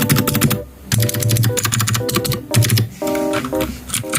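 Fast typing on a COX CK420 mechanical keyboard with clicky blue switches: a rapid run of sharp key clicks, with a brief pause a little over half a second in. Background music plays under it.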